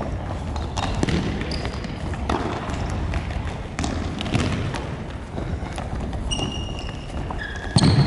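Futsal play on a wooden gym court: a series of sharp thuds from the ball being kicked and bouncing, with short high shoe squeaks on the floor and a loud kick just before the end.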